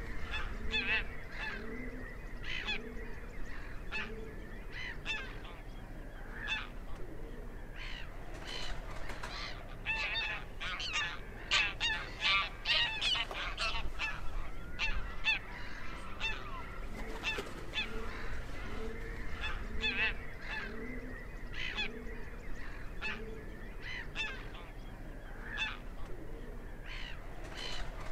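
A flock of geese honking and calling, with many short calls overlapping. The calling is busiest and loudest around the middle.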